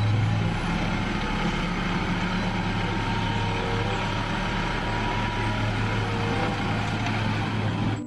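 Light dump truck's engine running steadily while the hydraulic hoist raises the bed and tips out a load of soil.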